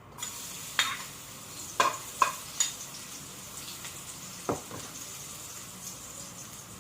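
Garlic sizzling steadily in hot cooking oil in a pan, with a utensil knocking against the pan about five times during the first half as it is stirred.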